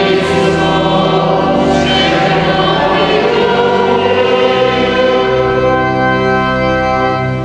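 Church choir singing the Gospel acclamation in long held chords, trailing off at the very end.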